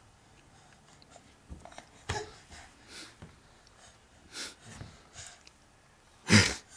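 A crawling baby's breathy snuffles and small scattered noises, quiet overall, with one louder breathy burst near the end.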